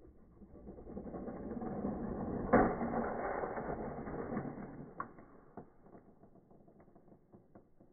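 A motorized toy train engine whirring as it runs along plastic track, growing louder, then a sharp clatter about two and a half seconds in as it crashes into a stopped toy train. The motor keeps grinding briefly and fades out, followed by a few small clicks; the audio is slowed down for slow motion.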